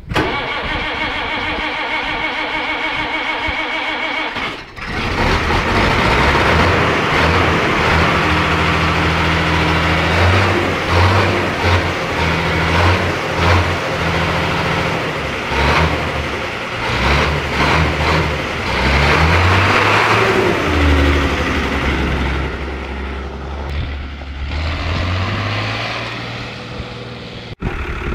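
Someca 1000 tractor's diesel engine being started: a steady whine for about four and a half seconds, then the engine catches and runs, revving up and down repeatedly.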